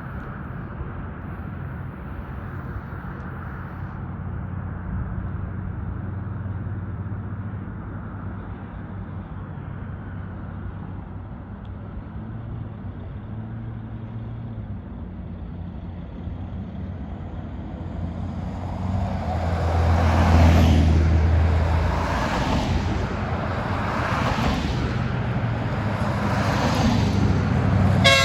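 GE ES44AC diesel locomotive running with a steady low hum, growing louder about two-thirds of the way in as the train approaches, with a rumble that swells and fades about every two seconds. The locomotive horn starts just at the very end.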